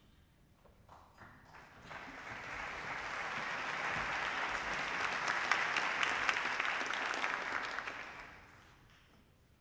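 Audience applauding in a concert hall: a few scattered claps, then applause that swells to full strength and dies away near the end.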